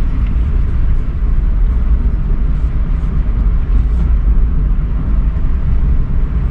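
A car driving along, heard as a steady, deep rumble of road and travel noise.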